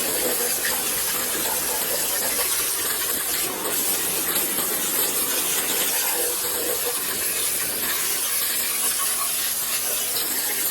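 Pressure washer jet spraying water in a steady hiss.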